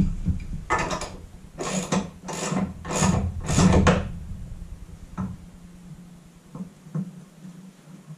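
Ratchet wrench tightening the lock nuts of a wall-mounted spare tire carrier: about five rasping strokes in quick succession over the first four seconds, then a few light clicks, over a steady low hum.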